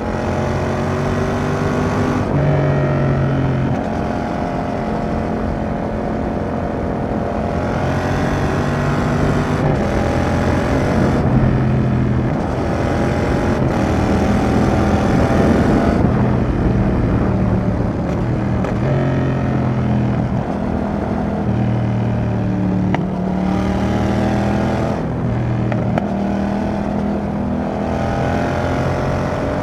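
Yamaha XSR700's CP2 parallel-twin engine through a Roadsitalia dual exhaust, heard from the rider's seat while riding, pulling up through the revs and dropping back at each gear change several times over. A broad rushing noise swells around the middle.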